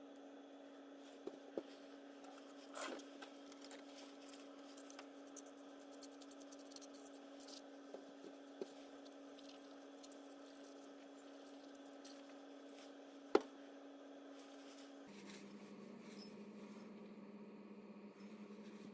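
Faint clicks and taps of tools and parts being handled, with one sharper click about 13 seconds in, over a steady low hum whose pitch shifts about 15 seconds in.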